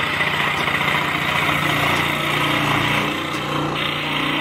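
Scroll saw running steadily, its blade cutting through a wooden board.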